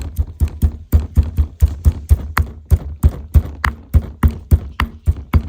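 Fresh Indian borage and black tulsi leaves pounded to a pulp in a mortar: a steady run of knocking strikes, about three to four a second, to crush out their juice.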